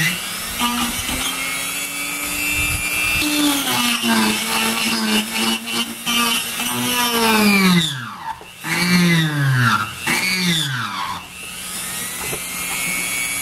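Dremel rotary tool running with a high whine as its bit cuts a hole through the plastic wall of a Pelican case. Its pitch drops and recovers several times, mostly in the second half, as the bit bogs down in the plastic.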